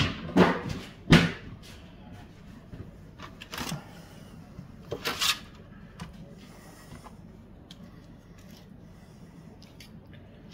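Kitchenware being handled: three sharp knocks and clatters in the first second or so, then two brief scraping swishes about four and five seconds in, with little after.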